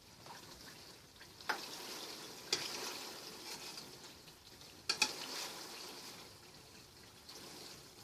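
Pieces of pork leaf lard sizzling in hot melted fat as they render in a pot. The sizzling swells about a second and a half in and eases toward the end, with a few sharp clicks about 1.5, 2.5 and 5 seconds in.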